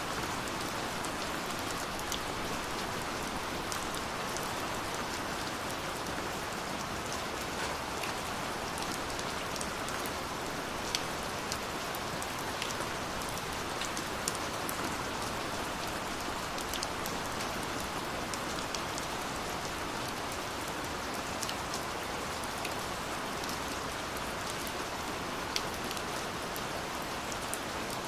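Steady rain falling, with a constant hiss and scattered sharp ticks of individual drops hitting a surface.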